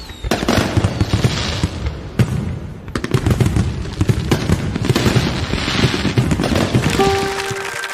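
Fireworks sound effect: a dense, continuous run of crackling pops and booms. Near the end a few held musical notes come in.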